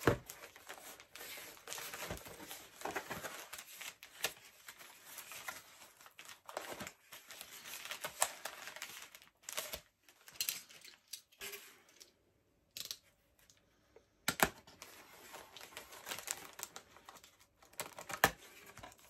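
Mail packaging being unwrapped by hand: irregular crinkling, rustling and tearing with sharp crackles, broken by a short quiet pause about two-thirds of the way through.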